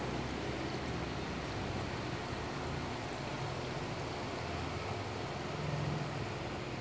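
Steady low hum with an even hiss and no distinct events, a little louder about six seconds in.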